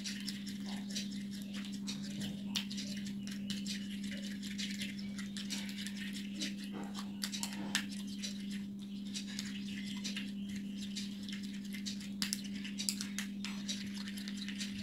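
Plastic spoon stirring and scraping a thick, sticky gel of aloe vera, glycerin and petroleum jelly in a small plastic bowl: a continuous run of small irregular clicks and squishes. A steady low hum runs underneath.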